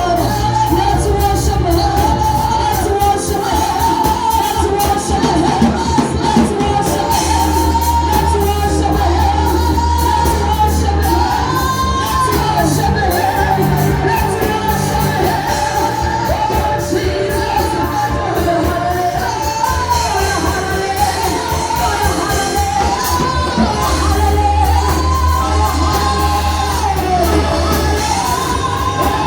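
Praise and worship music: a lead voice singing a wavering melody over a band with held bass notes and a steady drum beat.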